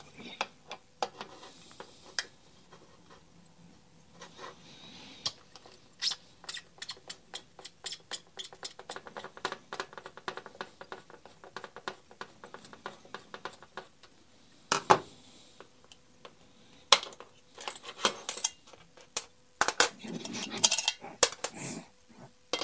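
Light metallic clicking and clinking as a Phillips screwdriver turns out the small screws holding a sander's paper clamp. A dense run of quick ticks comes in the middle, and a few sharper clinks of small metal parts being set down come in the second half.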